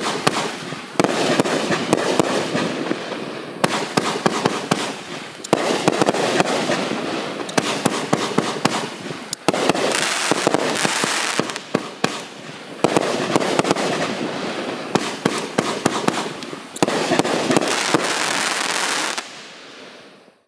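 Mandarin 'God's Choice' DR2502 25-shot firework cake firing in sequence: dense sharp crackling, swelling up suddenly about every two to four seconds as new shots go up and break. It stops shortly before the end and fades away.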